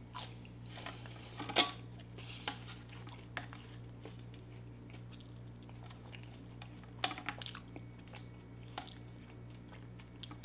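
Close-miked chewing of mac and cheese, with wet mouth clicks and a few sharp taps, the loudest about one and a half seconds in and again about seven seconds in, over a steady low hum.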